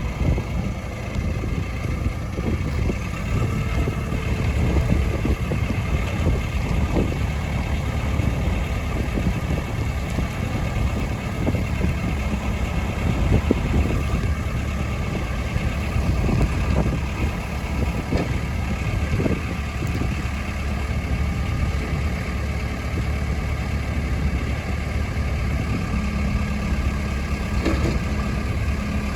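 JCB 3CX backhoe loader's diesel engine running steadily, with a few short clanks here and there.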